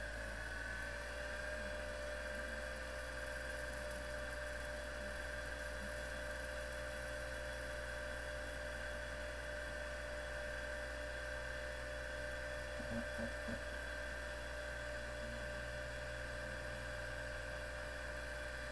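Apple ProFile 10 MB hard drive running after power-on: a steady motor whine that rises in pitch over the first second or so as the drive comes up to speed, then holds steady over a low hum. A brief cluster of faint ticks about thirteen seconds in.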